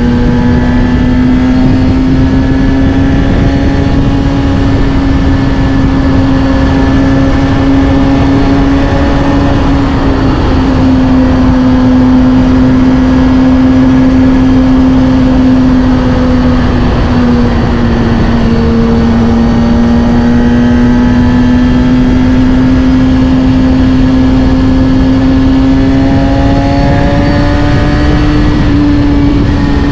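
Kawasaki Ninja ZX-6R inline-four running through a Scorpion titanium exhaust at a steady cruise. The engine note stays nearly level, dips slightly a few times and climbs gently near the end as throttle eases off and comes back on. A steady rush of wind and road noise runs underneath.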